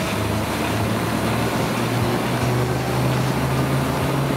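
A treadmill running at speed with a toy truck model driving on its belt: a steady whir of the belt, tyres and drivetrain over a low motor hum. The hum rises in pitch about a second and a half in as the belt speeds up.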